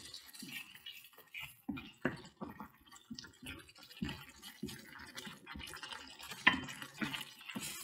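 Wooden spoon stirring a thick, liquid sambal in a white ceramic dish: irregular wet sloshing and soft scraping, with a couple of louder knocks in the second half.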